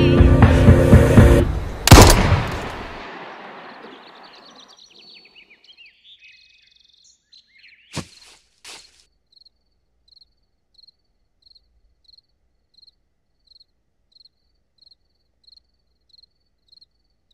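Music cut off by a single loud revolver gunshot about two seconds in, echoing away over a couple of seconds. Then near quiet, with two faint knocks about eight seconds in and faint high chirps repeating evenly, about one and a half a second, until the end.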